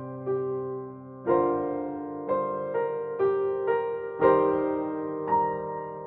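Slow piano music: single notes and chords struck and left to ring and fade, with fuller chords about a second in and again past the middle.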